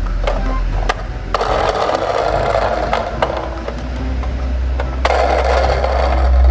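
Small plastic toy cars rolling down a slope, their wheels giving a rattling whirr in two runs with scattered clicks and knocks.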